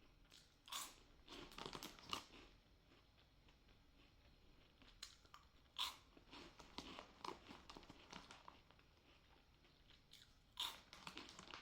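Close-miked crunching and chewing of crispy, airy buttery soy sauce corn puffs: irregular crunchy bites with quieter chewing between, the bites clustering about a second in, around six to seven seconds, and near the end.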